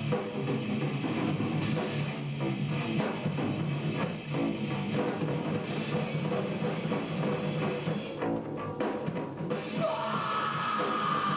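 Heavy rock band playing in the studio, a full drum kit prominent under the guitars and bass. A high held note comes in near the end.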